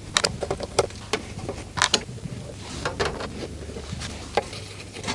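Screwdriver backing screws out of the perforated metal cover of an Audio Research LS28SE tube preamp: irregular small metallic clicks and taps, with a couple of sharper ones.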